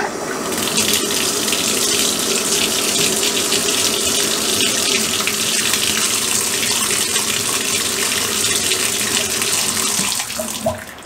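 Water running from a newly plumbed tub spout into the tub, a steady rush that shuts off near the end. This is the first water test of the new faucet.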